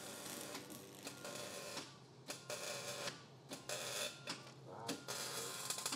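Fabrication-shop work noise: welding crackle and tool sounds in short bursts that stop and start repeatedly.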